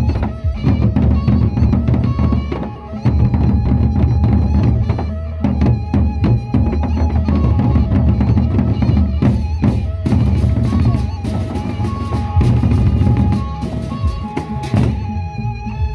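Gendang beleq ensemble playing: large Sasak double-headed barrel drums beaten with sticks in a dense rhythm over sustained gong tones, with cymbals clashing more thickly in the second half.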